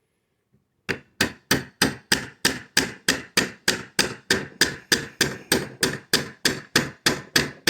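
Hammer tapping a punch in quick, even strikes, about three a second, driving a pin out of an AR-15 lower receiver. The strikes start about a second in.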